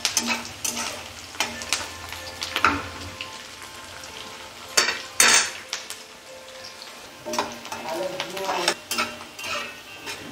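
Sliced onions sizzling in hot oil in a kadai, stirred by a metal spatula that scrapes and clinks against the pan, with two louder clanks about five seconds in.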